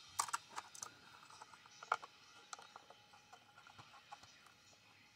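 Faint handling clicks and ticks from a snap-off utility knife and a plastic blister-pack card. A few sharp clicks come at the start and one louder click about two seconds in, then small uneven ticks as the blade is set against the card's edge.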